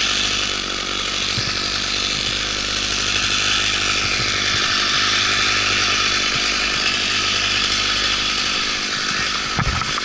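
Chainsaw running at a steady speed, with a few sharp knocks near the end.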